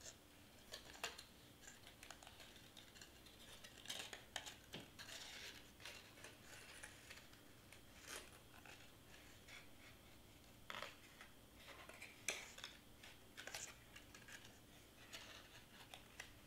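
Faint rustling and scattered light taps and clicks of cardstock pieces being handled and pressed together by hand.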